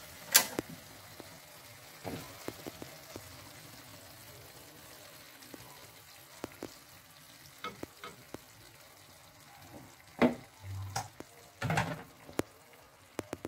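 Chicken pieces sizzling in a thick sauce cooked down in a nonstick frying pan, as the sauce reduces toward dry. There is a sharp click about half a second in as the gas stove knob is turned. A wooden spatula scrapes and knocks against the pan, heaviest from about ten seconds in.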